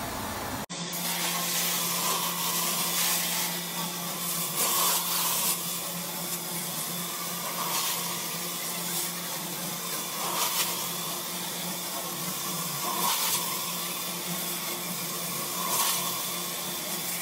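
Carpet-cleaning extraction wand (a Zipper wand) with its vacuum running: a steady suction rush over a low hum, swelling every couple of seconds as the wand is pushed and pulled across the carpet. A brief dropout comes less than a second in.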